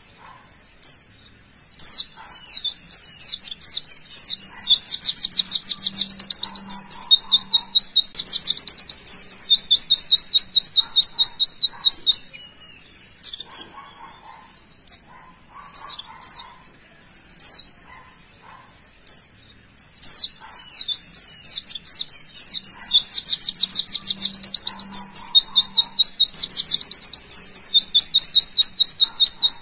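A white-eye (pleci) singing its rapid 'tembakan' song: high chirps running into a fast, even trill of sharply falling notes that lasts about eight seconds, then a few scattered chirps, and the same song starting again about twenty seconds in.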